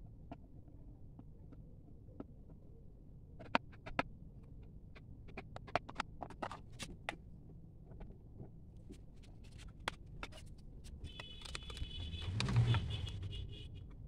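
Small plastic parts being handled: a run of sharp clicks and taps, then a scraping creak of plastic with a low thump about twelve and a half seconds in.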